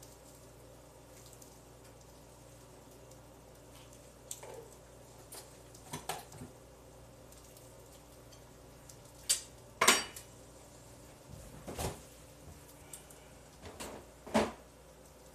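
Scattered clinks and knocks of dishes, containers and utensils being handled on a kitchen counter, about eight in all, the loudest clatter about ten seconds in, over a faint steady hum.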